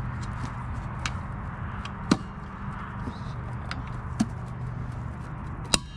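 A few sharp clicks and knocks as the lid of a stainless steel, vacuum-insulated camp crock is handled and fitted, the loudest about two seconds in and another near the end, over a steady low hum.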